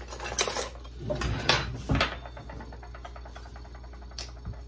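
Kitchen handling sounds as a glass bottle of red wine vinegar is fetched and handled: a few knocks and clatters in the first two seconds, then a quick, even run of faint ticks as its cap is unscrewed, ending in a small click.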